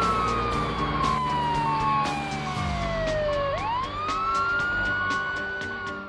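Police siren sound effect for a cartoon police van: a wail that slides slowly down in pitch, then sweeps quickly back up about three and a half seconds in and holds high. Background music with a steady beat plays underneath.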